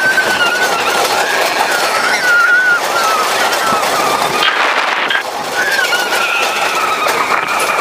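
Suspended roller coaster running at speed: a loud, steady rush of wind across the ride camera's microphone, with a high wavering squeal over it through most of the ride.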